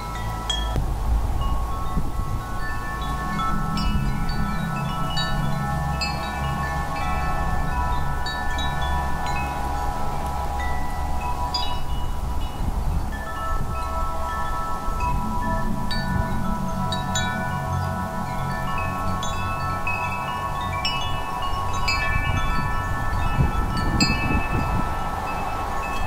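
Wind chimes ringing continuously, many overlapping metallic tones struck again and again. Underneath is a low wind rumble that swells and eases in gusts.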